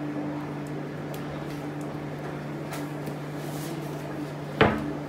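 A steady low electrical hum, with faint rustles and ticks as spice is shaken from a plastic shaker bottle into a glass bowl, then one sharp knock near the end.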